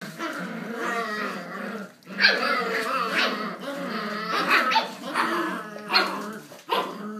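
Australian Shepherd puppies growling at each other in a play tug-of-war over a toy, broken by a few sharp barks about two, four and a half, six and seven seconds in.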